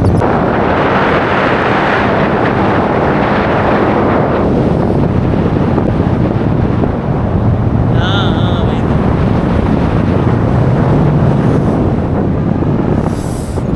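Strong wind rushing and buffeting the microphone in flight under a paraglider, a loud steady roar that is strongest in the first few seconds.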